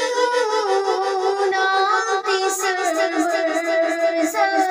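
A female voice singing an Urdu naat, holding long notes that waver and glide slowly between pitches.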